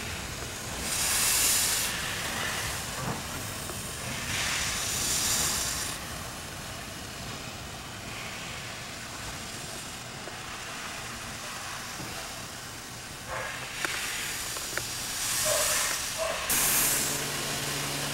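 Alco Type 70 steam locomotive letting off steam low at its cylinders: loud hissing in four bursts over a steady background hiss, with a few light metallic clicks. A steady low hum comes in near the end.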